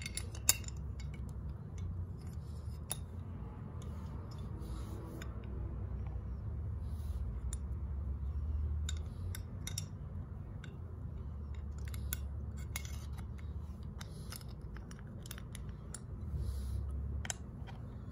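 Small metal parts of a vintage Century fan motor clicking and clinking as they are handled and fitted by hand, with one sharp click about half a second in, over a low steady rumble.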